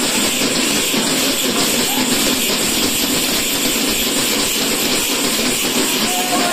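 Many tappeta frame drums beaten fast by hand all together, with dancers' ankle bells, making a dense, steady clatter.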